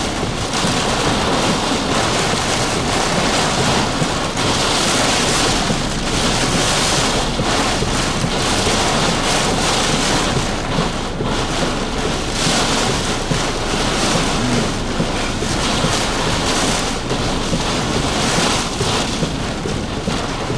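Heavy rain and strong gusting wind of a severe thunderstorm, a loud steady rush that swells in gusts every few seconds.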